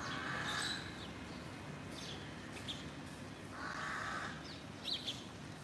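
A crow cawing twice, a harsh call at the start and another about three and a half seconds in, with small birds chirping briefly in between.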